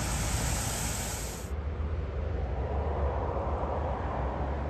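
Airliner on landing, a steady rushing roar with a low rumble. About a second and a half in the bright hiss cuts off abruptly, leaving the rumble and a duller rush.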